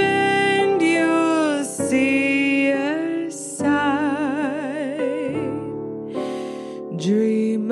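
A woman singing a slow ballad, holding notes of about a second each, with a long wavering vibrato on a held note about four seconds in, over a soft instrumental accompaniment.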